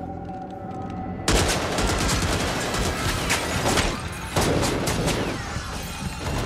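Rapid automatic rifle fire from two gunmen, starting abruptly about a second in. Bursts of shots run for about four seconds, with a brief break and a fresh burst partway through.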